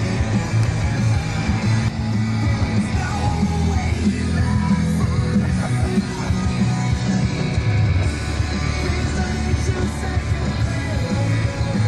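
Loud rock music with yelled, sung vocals over a driving band.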